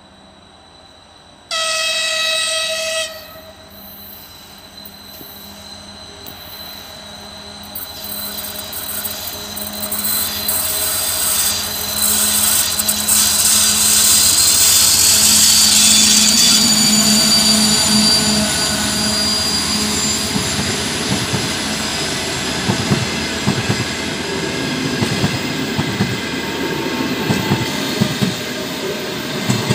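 TEP70 diesel-electric passenger locomotive sounding one horn blast of about a second and a half, then its diesel engine growing louder as it approaches and passes. Its passenger coaches then roll by with rapid clicks and knocks of wheels over rail joints.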